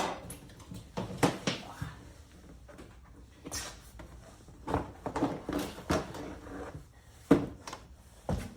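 Irregular clunks, knocks and rattles of hard plastic and metal being handled as the seat of a Yamaha Raptor 660 ATV is unlatched and lifted off, with quieter rustling between them.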